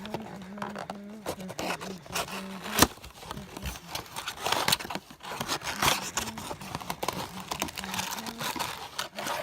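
Baseball-card packaging crinkling and tearing as it is ripped open, with irregular crackles throughout and a single sharp click about three seconds in.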